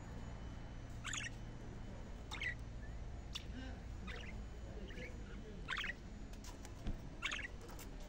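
Budgerigars chirping: about seven short, separate chirps, roughly one a second, over a low steady rumble.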